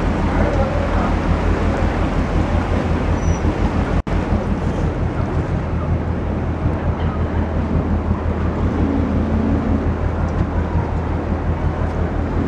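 Yakatabune pleasure boat's engine running steadily with a constant low hum, mixed with wind noise on the microphone. The sound cuts out for an instant about four seconds in.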